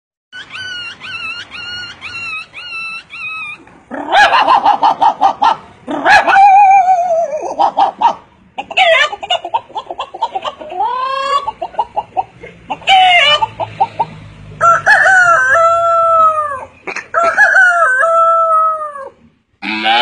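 A man imitating animal calls with his voice, one after another: a run of about six short repeated calls, about two a second, over the first few seconds, then a string of loud, varied cries that rise and fall in pitch.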